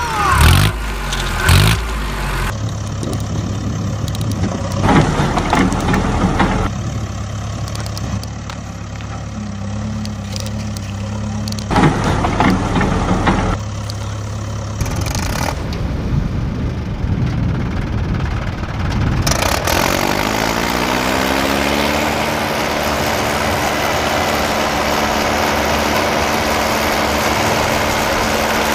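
Tractor engine sound running in several spliced stretches that switch abruptly. About twenty seconds in an engine starts, its pitch rising, then settles to a steady run.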